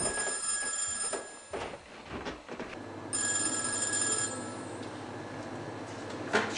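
Telephone ringing twice, each ring about a second long with a pause of about two seconds between them.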